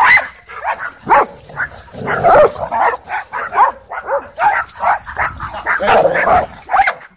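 Dogs barking and yipping in rough play, short calls coming one after another.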